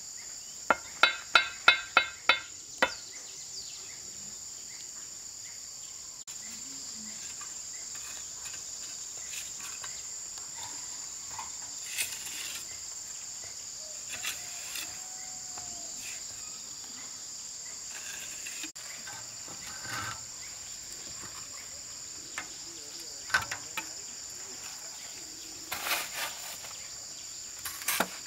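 Steady high-pitched insect chorus. Near the start come about seven sharp knocks in quick succession, roughly four a second, and a few scattered knocks follow later.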